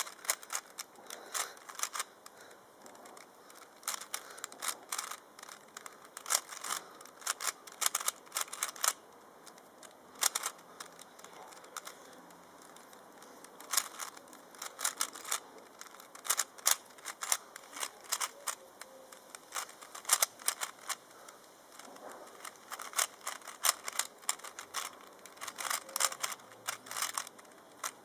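Rubik's cube being turned fast by hand in a timed solve: rapid runs of plastic clicks and clacks as the layers snap round, broken by short pauses.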